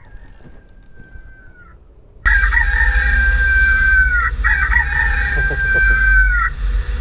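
Recorded rooster crow played through a 12-volt electronic animal-sound PA horn on a car. One crow is heard faintly from inside the cabin, then from about two seconds in two loud crows follow back to back, each ending in a falling note, over a low rumble.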